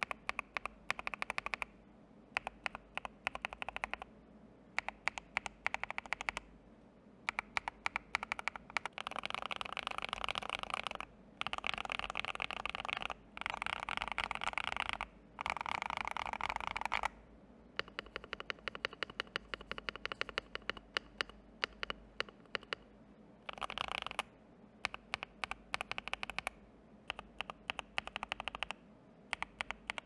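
Typing test on a mechanical keyboard with Akko CS Silver linear switches lubed with Krytox 205G, in a FEKER IK75 with a polycarbonate plate, tape mod and thick gaskets. Keys are typed in quick bursts with short pauses, with a long run of fast continuous typing from about a third of the way in to just past halfway. The first part is on ASA-profile keycaps, the later part on Cherry-profile keycaps.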